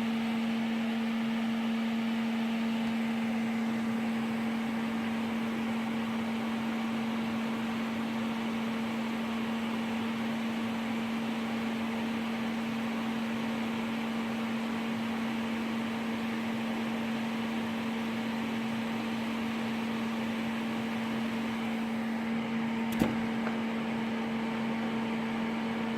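Electric fan of a homemade solder fume extractor running steadily: a constant hum over a rush of air being drawn in. A single sharp click comes near the end.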